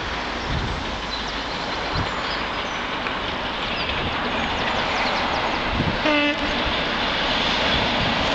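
Class 73 locomotives hauling a passenger train toward the listener, a steady rumble that slowly grows louder as it nears. About six seconds in, the locomotive's horn gives one short toot.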